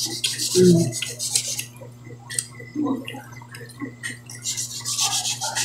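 Wet mouth sounds of eating at the table: chewing and lip smacking in short, irregular clicks, over a steady low hum. A brief voiced sound comes under a second in.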